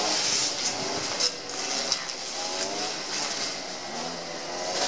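Steady high-pitched hiss of outdoor forest ambience, with faint low tones coming and going and a couple of short clicks.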